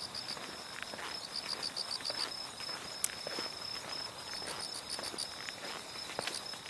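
Shoe footsteps walking at an even pace, about two steps a second, while autumn night insects chirp in quick pulsed groups over a steady high trill. A single sharp click sounds about three seconds in.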